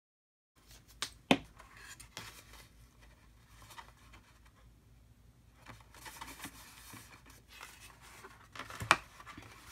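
A paper box being handled and its bottom flaps folded and pressed shut: soft paper rustling and creasing, with two sharp taps just over a second in and another near the end. It opens with a brief moment of dead silence.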